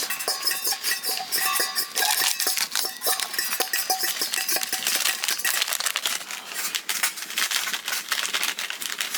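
Metal utensils clinking and scraping against metal cookware, a rapid run of sharp clinks that ring briefly, more often in the first half, as noodles are stirred and dished out.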